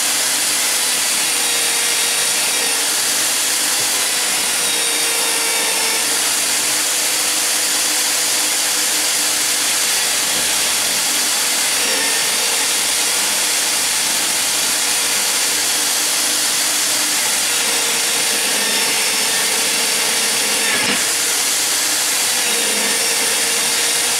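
Electric drill clamped in a bench vice, spinning a steel wire cup brush that scrubs rust and grime off an old pipe wrench held against it: a steady rasping whir. The motor's hum sags a little now and then as the work is pressed into the brush.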